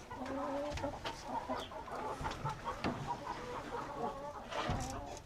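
Hens clucking in a chicken coop, several birds calling over one another in short notes, with a couple of light knocks.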